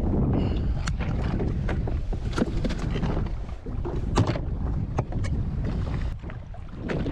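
Wind buffeting the microphone as a steady low rumble, with scattered sharp knocks and clicks of handling on the watercraft, the loudest about four seconds in.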